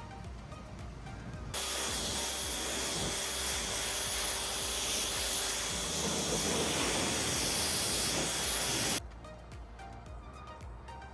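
Water spray hissing steadily against the car during a wash; it starts and cuts off abruptly, with background music before and after it.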